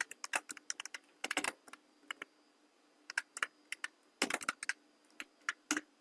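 Typing on a computer keyboard: irregular runs of key clicks with short pauses between them.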